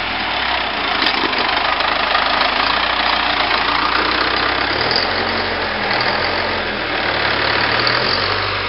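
Old wheel loader's engine running steadily as the machine moves close by, its note shifting about five seconds in.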